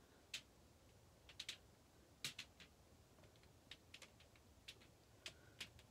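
Near silence broken by about ten faint, irregular small clicks and ticks as black acrylic paint is spread by hand across a canvas.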